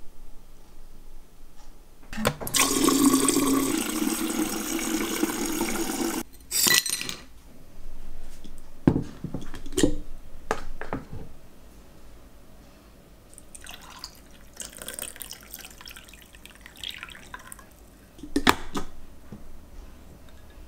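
Liquid poured into a glass for about four seconds, followed by a few sharp knocks and clinks, a second, quieter stretch of running liquid, and one more knock near the end.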